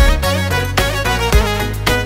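Instrumental Romanian manele music with a beat and no singing.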